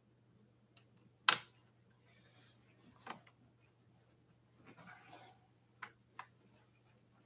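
A few sharp clicks and knocks from hands working on an e-bike's handlebar stem in its packaging. One loud click comes just over a second in, fainter ones follow, and there is a short soft rustle around five seconds.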